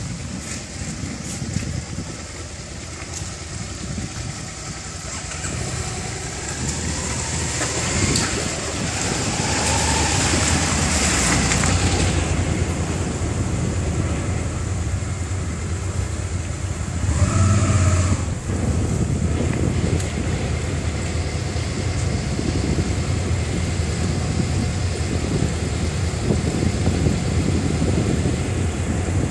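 Several motorcycles riding past one after another on a gravel track, each engine getting louder as it passes, loudest about ten seconds in and again around seventeen seconds, with another bike approaching near the end. A shallow stream runs underneath.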